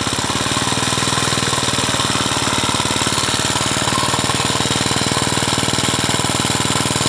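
A small engine running steadily with a rapid, even chugging beat.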